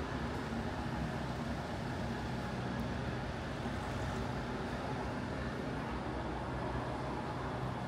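Steady road-vehicle noise: engines running and traffic, with no distinct events standing out.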